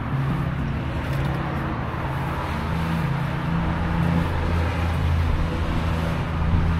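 Background music of low held notes that change pitch every second or so, over a steady hum of street noise.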